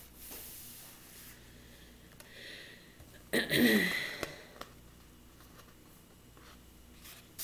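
Coloring-book paper rustling softly as the page is pressed flat, then a short murmur of a voice with a falling pitch about three seconds in; otherwise quiet room tone.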